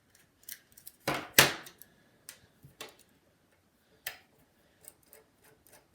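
Small metallic clicks and ticks from a precision screwdriver working the mounting screws out of a 2.5-inch laptop hard drive, with a louder double knock about a second in.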